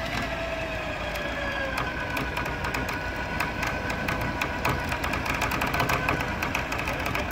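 Electric winch on a 4x4 stuck to its hood in mud, its motor whining steadily under load as it pulls on the cable, over the low rumble of the vehicle's running engine. A tone falls in pitch during the first couple of seconds, and there are scattered light clicks.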